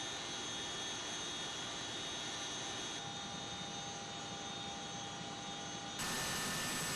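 Helicopter turbine engine running steadily, a constant rushing noise with high steady whining tones. The sound changes abruptly about three and six seconds in.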